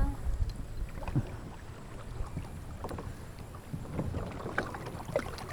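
Wind rumbling on the microphone over the river, with scattered small water splashes and light knocks.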